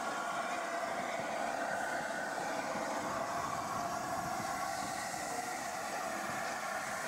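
LNER A4 Pacific steam locomotive rolling slowly past at close range: a steady hiss and rumble with no distinct exhaust beats.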